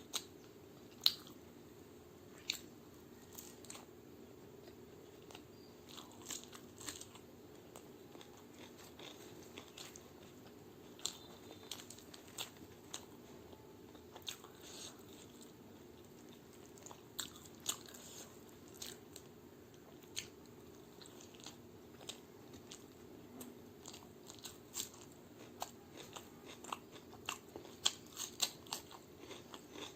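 Close-miked eating of chole bhature with raw onion and cucumber: irregular crunchy bites and wet chewing, with many small sharp clicks throughout and a faint steady hum underneath.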